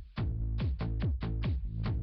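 Electronic dance music with a fast, steady kick-drum beat and sustained bass.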